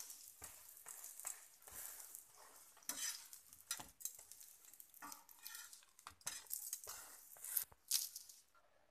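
A flat metal spatula scraping and pressing a kulcha on a hot tawa, in short irregular strokes, with light sizzling of ghee under the bread. The two loudest scrapes come near the end.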